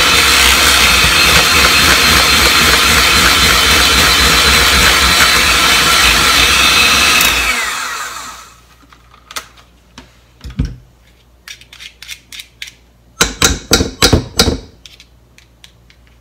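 Handheld electric mixer running steadily with a high whine, its beaters whipping marshmallow mixture of egg white and gelatin in a stainless steel bowl, then switched off about seven and a half seconds in, the motor winding down. Scattered clicks and a short cluster of knocks follow as the beaters are taken out of the mixer.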